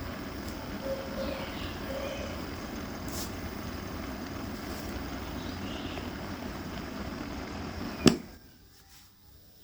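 Small electric fan blowing steadily, a continuous airy whoosh, that stops just after a sharp click about eight seconds in.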